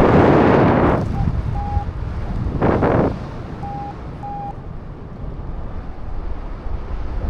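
Strong wind buffeting the microphone in heavy gusts, loudest in the first second and again at about three seconds in, then easing. A few short electronic beeps, all at the same pitch, sound between the gusts.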